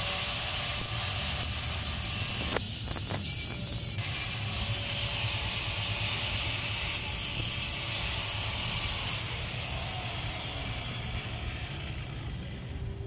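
Electric angle grinder with a cutting disc running with a steady whine and hiss while the brass ball of a ball valve is ground against the disc, deepening the slot that the valve stem must engage. The grinder slows down near the end.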